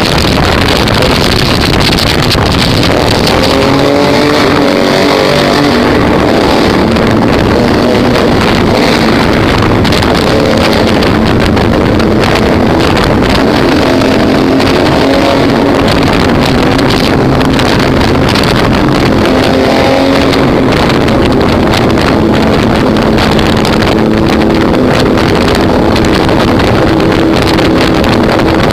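Vehicle engine running under way, its pitch rising and falling several times as it accelerates and eases off, with wind rushing over the microphone.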